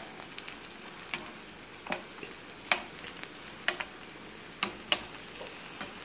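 Oil sizzling steadily around vegetable lumpia frying in a skillet, with scattered sharp clicks and pops while the browned rolls are turned with metal tongs.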